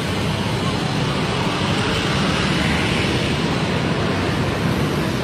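Steady city road traffic noise: an even wash of engines and tyres.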